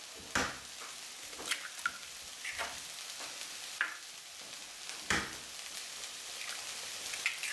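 Eggs being cracked into a plastic mixing bowl: several short, sharp taps and cracks of eggshell, one knock a little after five seconds in heavier than the rest. Under them runs the steady hiss of onions frying in oil in a pan.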